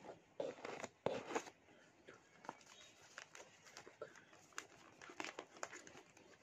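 Paper packing wrapping rustling and crinkling as hands pull it out and unfold it, with a dense run of crackles in the first second and a half, then scattered crackles.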